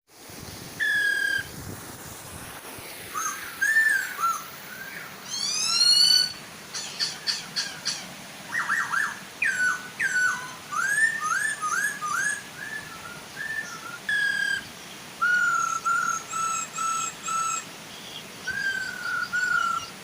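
Black-throated laughingthrushes singing a varied series of clear whistles, rising sweeps and runs of repeated notes, over the steady rush of a waterfall.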